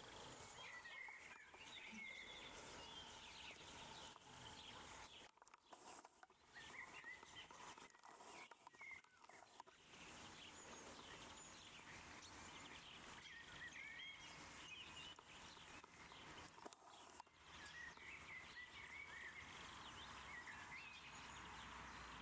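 Faint outdoor ambience with a steady hiss and birds chirping in short snatches several times.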